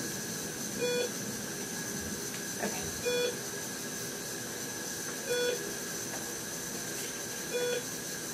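Bedside hospital medical equipment beeping: a short pitched beep repeating evenly about every two seconds, four times, over a steady electrical hiss, with faint rustling from handling a suction catheter.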